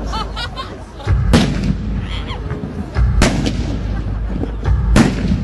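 Fireworks display: three loud bangs from aerial shells, about two seconds apart, each followed by a deep rumbling boom.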